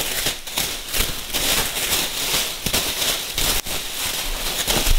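Clear plastic packing film crinkling and rustling loudly as it is pulled out of a box by the handful and thrown aside, with dense irregular crackles.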